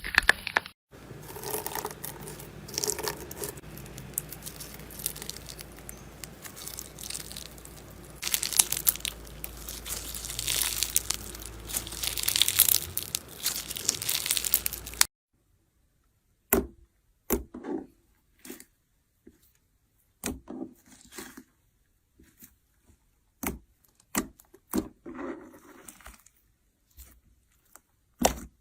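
Slime being squeezed and worked by hand: a dense run of crackling, crinkling noise for about the first half. Then it cuts abruptly to separate sticky pops and clicks with silence between them.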